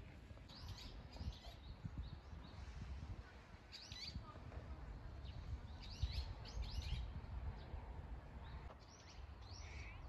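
Small birds chirping: short, high calls scattered through, some in quick clusters, over a faint low rumble.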